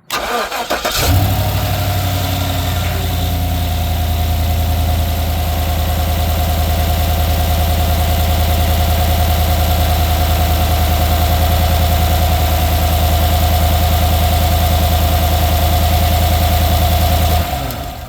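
Chevrolet Silverado pickup V8 engine cranking and catching, then idling steadily for about sixteen seconds before being shut off near the end. It is the first run after an oil change, circulating the fresh oil before the level is checked.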